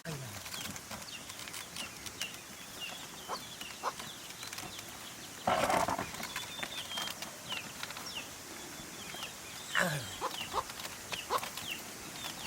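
Small birds, or fowl, chirping over and over in short high calls, with a brief loud rasping noise about halfway through.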